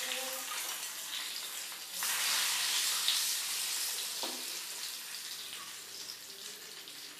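A tempering of bay leaf, nigella seeds and a dried red chilli sizzling in hot oil in a metal pan. The sizzle gets suddenly louder about two seconds in, then slowly dies down.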